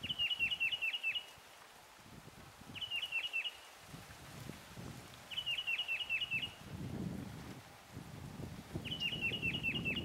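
Tufted titmouse singing: four phrases of four to seven quick, clear whistles, each note falling in pitch, with pauses of one to two and a half seconds between phrases.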